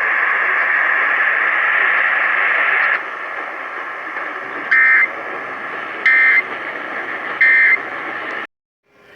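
Emergency Alert System end-of-message over broadcast radio: a steady hiss for about three seconds, then three short, harsh data bursts about a second and a half apart, the EOM code that closes the monthly test, before the audio cuts off suddenly.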